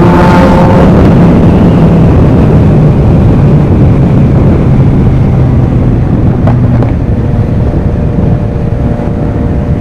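Car engine and loud exhaust running hard while driving. The engine note holds steady, then settles lower and eases off in the second half, with wind noise throughout.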